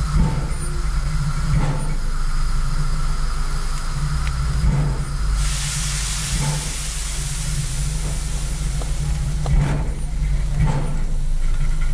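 Pere Marquette 1225, a Lima-built Berkshire steam locomotive, standing under steam with a steady low rumble and a few soft knocks at uneven intervals. About five seconds in, a burst of steam hiss lasts roughly a second and a half.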